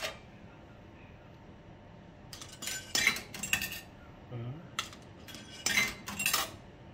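Coins going into the coin slot of an SNCF luggage-locker payment machine: a quiet start, then a run of sharp metallic clinks and clatters from about two seconds in as the coins drop through and are accepted, bringing the amount due down.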